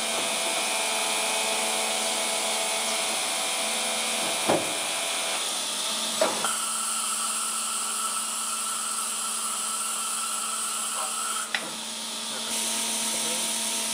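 Ketterer KM 120 vertical machining center running with a steady mechanical hum, broken by three sharp metallic knocks. A steady high whine starts about six seconds in and cuts off about five seconds later, just before the last knock.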